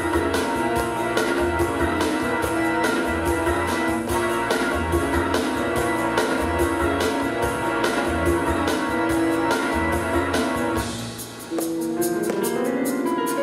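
Recorded backing track of a pop song in an instrumental passage: a steady drum beat with bass and sustained chords. Near the end the beat drops out and a piano run rises in steps.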